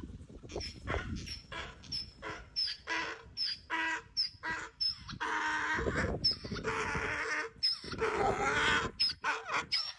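A cow bawling loudly for treats: short repeated calls, then three longer drawn-out bawls in the second half.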